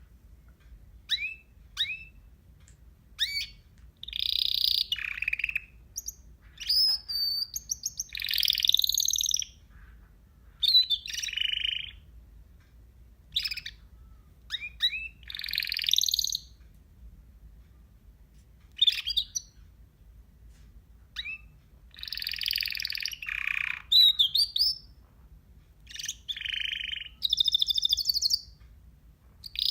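Pet parrot calling in bouts: quick rising chirps mixed with harsher, scratchy calls about a second long, every second or two.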